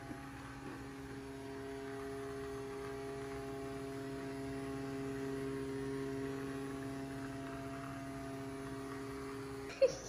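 BowAl budget robot vacuum cleaner running: a steady motor hum with several held tones. A brief knock near the end.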